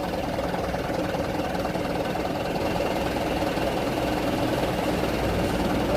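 Truck diesel engine idling steadily with a fast, even knock, growing slightly louder in its low rumble near the end.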